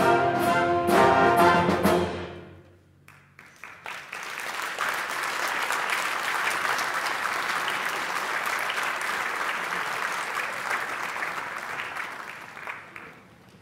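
A school concert band of brass, woodwinds and percussion ends a piece on a held final chord that stops about two seconds in. After a short pause the audience applauds for about nine seconds, then the clapping fades out.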